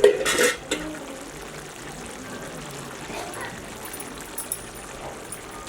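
Liquid poured briefly into a cooking pot, followed by a steady faint hiss from the pot.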